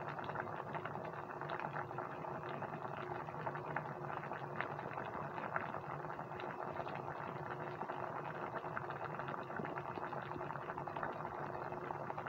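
Soy and kalamansi sauce boiling in a pan around pork chops, pork liver and onion rings: steady bubbling with many small pops and crackles, over a faint steady hum.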